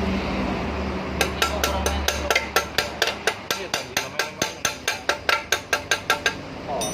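A hammer striking metal in a quick, even series of blows, about five a second for around five seconds, each blow ringing briefly. A low hum underneath fades out about two seconds in.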